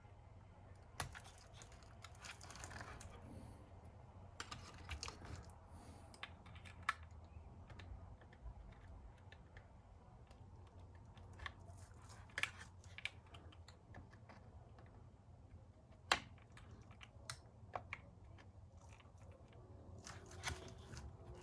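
Scattered small clicks and taps with faint rustling: small parts being handled and fitted by hand, a few sharper clicks standing out.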